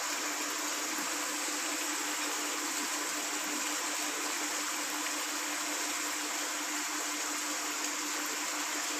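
Steady rushing hiss with a low, steady hum underneath.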